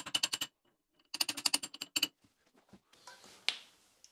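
Quick runs of light metallic clicks, about ten a second, from hand work on a lathe's cross slide and ballscrew mounting: a short run at the start and a second run of about ten clicks a little after a second in. A single sharper click comes near the end.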